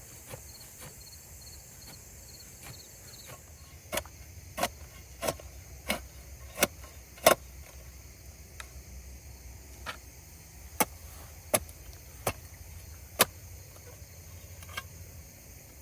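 Two runs of sharp knocks at an even pace, about three every two seconds, the first starting about four seconds in and the second near the middle. Insects chirp faintly and rapidly in the first few seconds over a low steady rumble.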